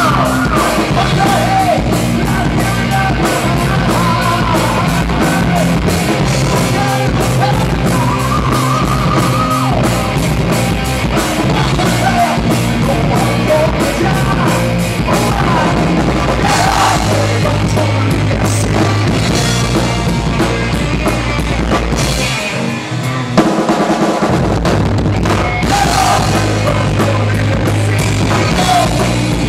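A rock band playing live: electric guitars, bass guitar and a drum kit. About two-thirds of the way through, the bass drops out for a moment, and the band comes back in on a loud hit.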